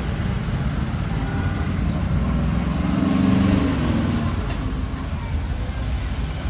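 Steady road traffic rumble. One engine grows louder and passes about two to four seconds in, dropping in pitch as it goes.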